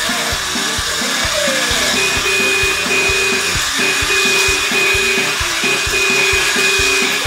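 Battery-powered toy robot walking, its small motor and gears whirring, over electronic music with a steady beat and repeated beeping tones that start about two seconds in.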